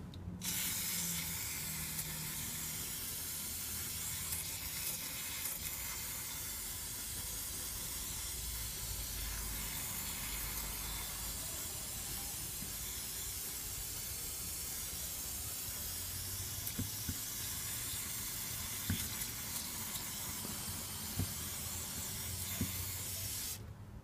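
Aerosol can of carburettor cleaner spraying onto the oily rear differential housing in one long continuous hiss that cuts off just before the end. A few faint knocks sound in the second half.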